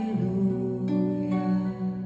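A woman singing a slow, held melody to her own harp accompaniment, with plucked harp notes and a fresh chord struck about a second in.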